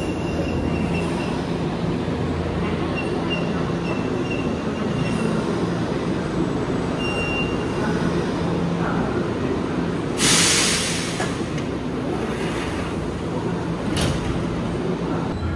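Nankai 6000 series stainless-steel commuter train standing at the platform with its on-board equipment humming steadily. About ten seconds in there is a sharp burst of air hiss as the pneumatic doors open, and a short knock comes near the end.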